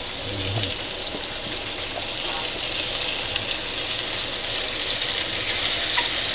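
Water running steadily from a kitchen tap, a continuous hissing rush that grows slightly louder toward the end.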